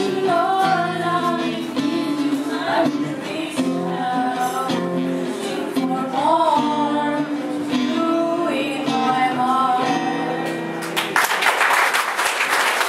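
Three women singing a worship song together to a strummed acoustic guitar. Near the end the song stops and an audience applauds.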